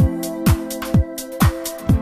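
Electronic dance music: a deep kick drum on every beat, about two a second, with hi-hat hits over held synth chords.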